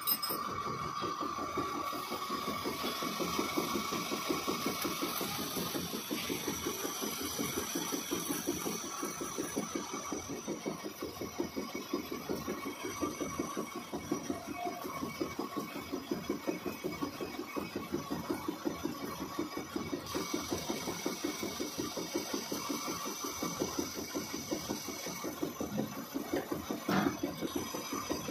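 Metal lathe running, a boring bar cutting inside the bore of a steel bevel pinion blank, with a steady, fast pulsing rhythm from the machine. A single sharp knock about a second before the end.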